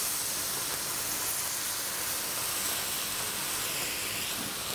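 White wine vinegar poured into a hot cast-iron pan of breadcrumb-topped sardines, sizzling and hissing steadily as it boils off in steam.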